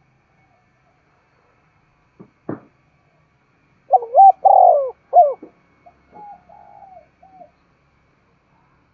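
Spotted dove cooing: one loud three-part coo phrase about four seconds in, followed by a softer run of coos. Two brief knocks come a couple of seconds before it.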